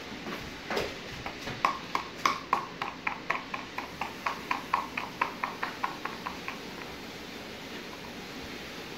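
Quick footsteps on a hard floor, about four a second, going for some five seconds and then growing fainter and stopping, after a single thump about a second in.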